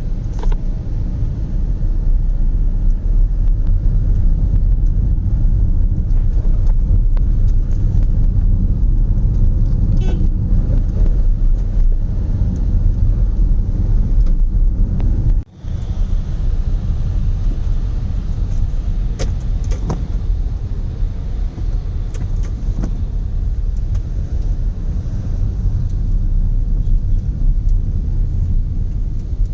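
A car driving, a steady low road and engine rumble, briefly cut off about halfway through.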